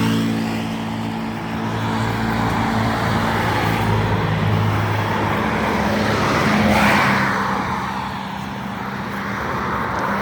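Road traffic: a motor vehicle's engine hum holds steady for the first few seconds, then another vehicle passes about seven seconds in, its noise swelling and fading.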